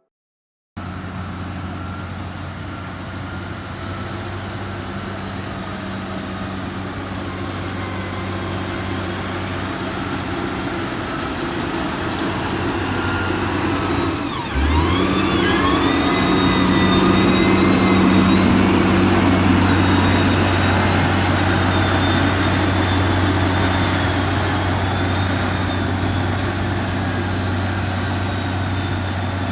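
Motor grader's diesel engine running steadily with a low hum. About halfway through its pitch dips briefly, then rises and it gets louder, with a thin high whine above the engine.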